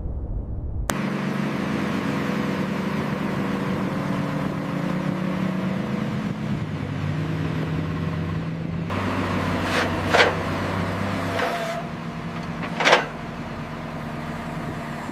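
Heavy machine's engine running steadily, its pitch shifting a few times, with two sharp knocks about ten and thirteen seconds in.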